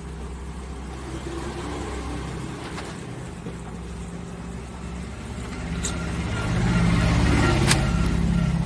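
A steady low motor hum that grows louder about six seconds in, with a couple of sharp clicks near the end.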